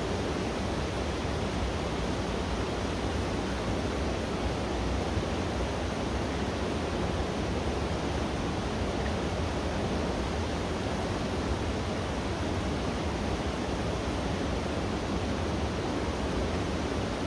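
Steady rushing of fast-flowing river water, an even hiss with no breaks or separate sounds.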